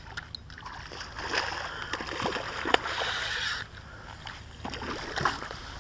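Water splashing and sloshing, with scattered small clicks and one sharper knock a little before the middle.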